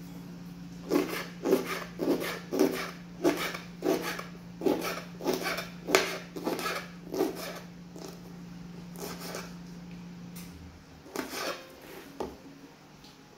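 Kitchen knife slicing a green sweet pepper against a bamboo cutting board: a run of chops about two a second, then a few slower cuts near the end.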